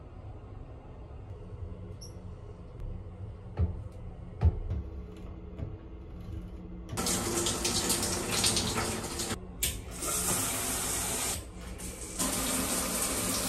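Shower water rushing on after a couple of sharp clicks from the shower mixer's handles, stopping briefly twice as the handle is worked, then running again from the overhead rain shower head.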